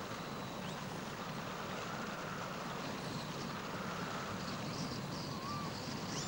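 Steady rushing outdoor background noise, even throughout, with a few faint short high chirps.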